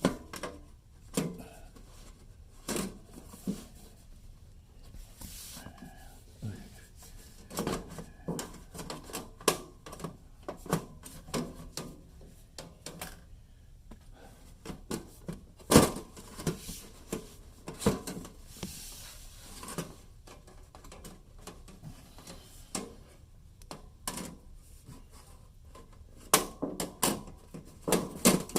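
Handling noise from work on a refrigerator: scattered clicks, taps and knocks of plastic and metal parts being moved, with one loud knock about 16 seconds in and a quick run of knocks near the end.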